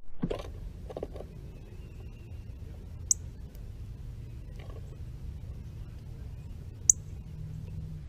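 Northern cardinal landing on a wooden birdhouse feeder close to the microphone, with knocks and scratches as it settles, over a steady low rumble. Two sharp clicks come about three seconds in and near the end.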